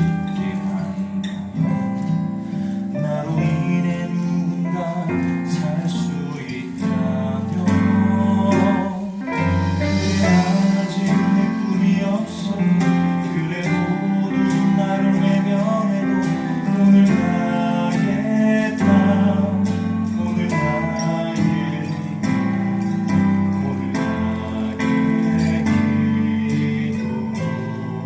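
Music from a stage musical's live band, with acoustic guitar prominent, playing steadily through a passage without lyrics.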